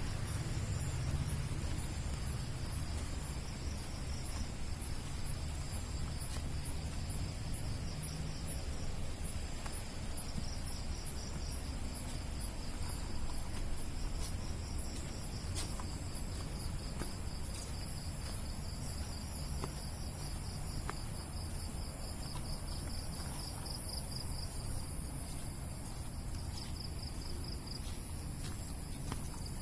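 Night insects calling, crickets among them: a very high chirp repeating about twice a second over a steady high-pitched buzz from other insects.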